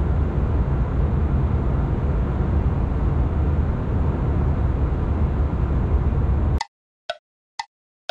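Airliner cabin noise: the steady low rumble of jet engines and airflow. It cuts off abruptly about six and a half seconds in, replaced by a clock-ticking sound effect at about two ticks a second.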